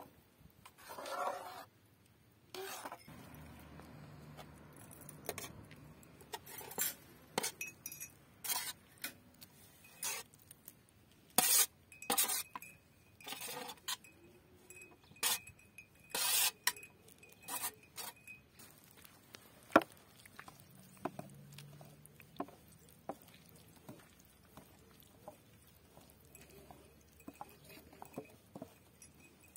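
A metal spoon clinking and scraping against a metal cooking pot and a metal tray as food is scraped off into the pot, then a wooden masher knocking and pressing in the pot. Irregular sharp clinks, busiest in the middle, give way to sparser light taps near the end.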